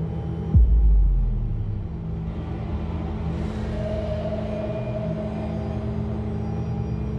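Horror soundtrack: a low, droning score broken about half a second in by a sudden deep boom that drops sharply in pitch and rumbles away over a second or so, with a faint high tone drifting in around the middle.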